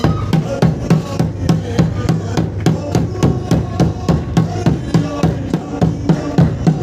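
Group singing of a Mizo spiritual song (Thlarau lam zai) over a steady drum beat, about three to four strokes a second.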